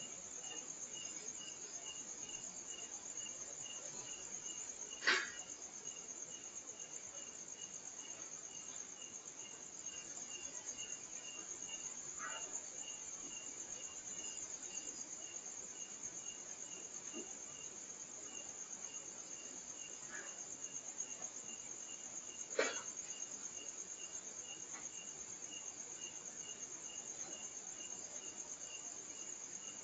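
Night insect chorus: a steady high-pitched cricket trill, with a second insect chirping in an even pulse that stops briefly partway through. A few sharp knocks break in, the loudest about five seconds in and again near the twenty-second mark.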